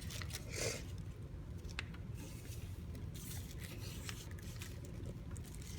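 A folded sheet of paper being handled and creased by hand: soft, scattered scraping and rubbing of paper with a few short crisp ticks, over a faint steady low hum.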